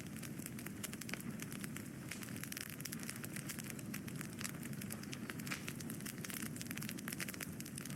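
Wood fire burning, with a dense, irregular stream of small crackles and pops over a steady low rush of flame.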